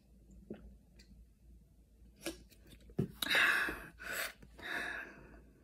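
A person gasping and breathing out hard after chugging fizzy root beer. A few soft clicks come first, then about three seconds in a sharp click and three loud, breathy gasps in quick succession.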